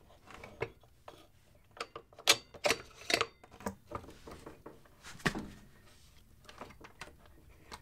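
Suzuki GSF 650 Bandit's front axle being slid by hand through the fork leg and wheel hub, giving a scattered run of sharp clicks, taps and light knocks as it is fiddled into line. The clicks are thickest from about two to five and a half seconds in.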